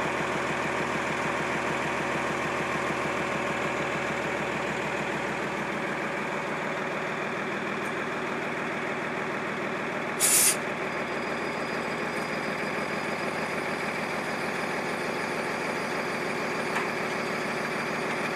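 Truck engine idling steadily while it powers the hydraulic boat trailer. About ten seconds in there is a short, sharp hiss of released air.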